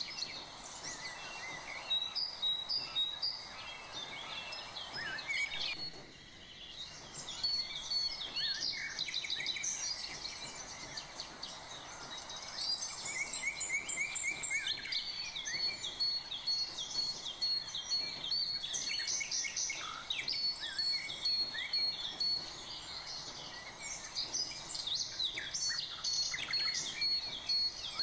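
Small birds chirping and calling throughout, many short sweeping notes with a rapidly repeated high note among them, over a low steady background hiss.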